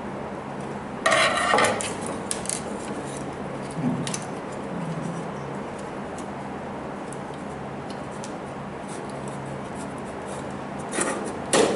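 Hard parts of a laser printer's scanner unit being handled and opened: a scraping rattle about a second in, scattered clicks, and more scrapes and clicks near the end, over a low steady hum.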